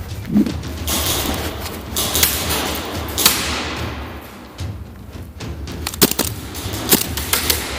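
Airsoft guns firing during play: several sharp snaps in quick succession in the second half, after a few seconds of rustling, scuffing noise.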